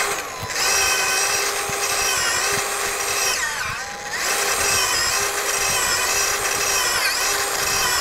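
DeWalt 60-volt cordless drill running a Power Planter auger into garden soil. The motor whines steadily and its pitch sags as the auger takes load and is eased in and out of the hole, most deeply about three and a half seconds in.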